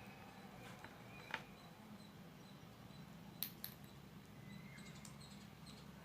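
Faint clicks and light handling noise from small plastic wired earphones being picked up and fitted, a couple of taps about a second in and again past three seconds, over a low steady hum.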